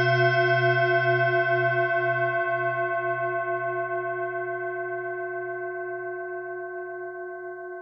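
Singing bowl ringing after a single strike: a low hum under several higher, slightly wavering tones, slowly fading away.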